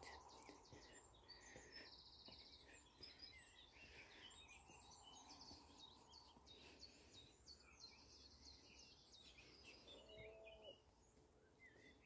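Faint chorus of several small songbirds, with many short high chirps and rapid trills overlapping.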